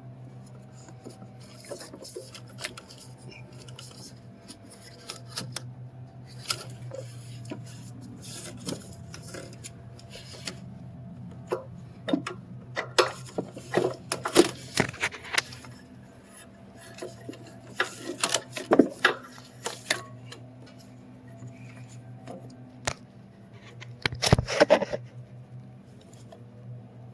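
Metal hand tools clinking and scraping against metal parts in irregular bursts, busiest in the middle and again near the end, over a steady low hum.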